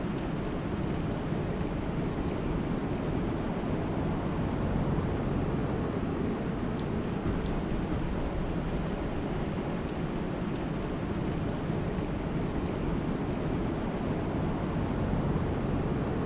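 Steady rain storm, an even rushing noise with a deep rumble beneath, dotted with faint high ticks at irregular moments.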